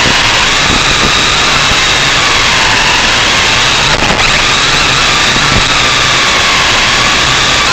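Quadcopter's electric motors and propellers whining steadily, the whine drifting up and down in pitch as it flies, with a short crackle and dip in level about four seconds in.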